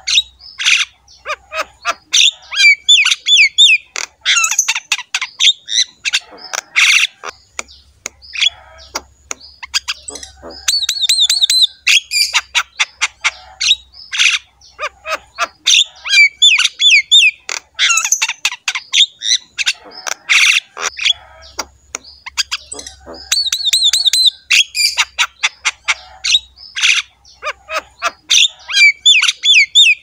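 Javan myna (jalak kebo) singing a long, vigorous song of rapid chattering notes, clicks, short whistles and harsh squawks, broken only by brief pauses.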